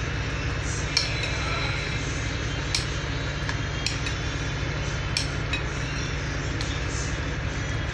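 A spoon stirring thick vegetable-fritter batter in a glass bowl, clinking against the glass at irregular moments, about once a second, over a steady low hum.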